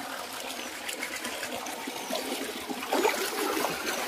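Running water trickling steadily, a little louder about three seconds in.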